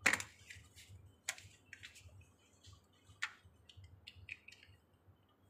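Clicks and taps of hard plastic stroller parts handled during assembly: a rear wheel being fitted onto its metal axle and a hub cap pressed into its centre. A sharp click comes right at the start, with further sharp ones about a second in and past three seconds, and lighter taps between.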